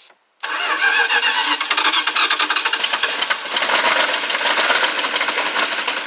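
Chrysler 360 cubic-inch V8 firing up about half a second in on carb cleaner sprayed into its carburetor and running with a rapid, even firing rhythm, swelling a little around the middle and starting to fade near the end.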